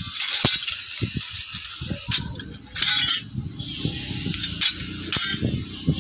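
Forged knife blanks clinking and scraping against one another as they are handled and spread into a pile, a run of irregular metallic clicks with a few brighter scrapes.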